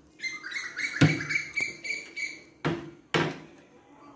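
Small wooden kitchen cupboard doors with glass panes being opened and shut by hand: a squeaky creak, likely the hinges, for about two seconds, and three sharp knocks as the doors bang against the frame.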